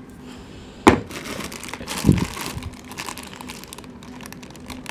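Packaging crinkling and rustling as parts are handled, with a sharp click about a second in and a low thump about two seconds in.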